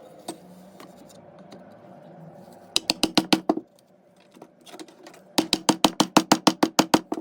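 Rapid series of sharp knocks in two runs: about seven quick taps, then a pause, then a longer run of about fourteen, each with a short low ring.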